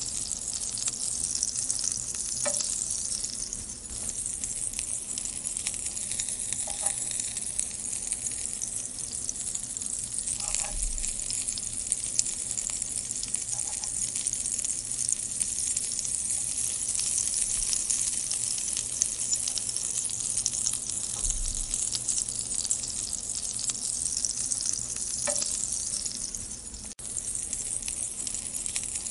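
Green chilli rings sizzling in hot oil in a nonstick pan with a steady high sizzle, stirred now and then with a wooden spatula.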